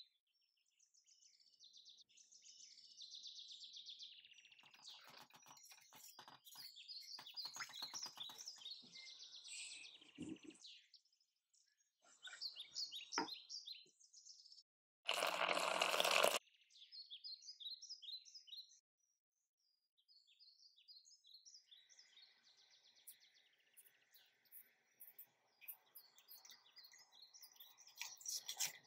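Small birds chirping throughout, with a run of light clicks from a spoon stirring in a stainless steel pot during the first third. About fifteen seconds in there is a loud rushing noise lasting about a second. In the last few seconds a faint steady hiss comes from the sugar syrup at the boil.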